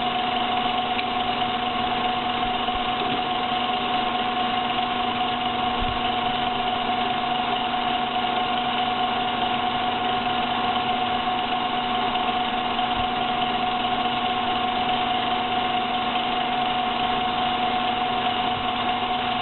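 Small milling machine running steadily, a constant motor hum and whine that does not change, while milling the crankpin of a 0.33 cc model diesel engine.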